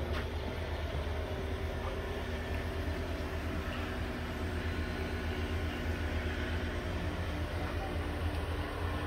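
Outdoor central air-conditioning condenser unit running: a steady low hum with a few faint steady tones over it.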